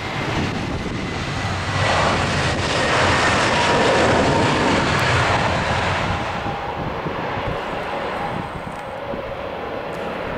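Airbus A320-214's CFM56 jet engines spooling up for reverse thrust on the landing rollout. A rush of engine noise with a faint whine swells about two seconds in, is loudest around four seconds, and dies back after about six seconds as the engines return to idle.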